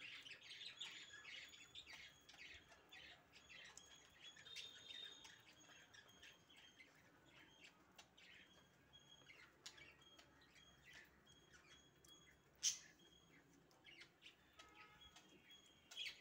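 Faint, quick lapping and chewing clicks of puppies eating from a dish, mixed with thin high squeaks, thickest in the first few seconds and sparser after; one sharper click about three-quarters of the way through.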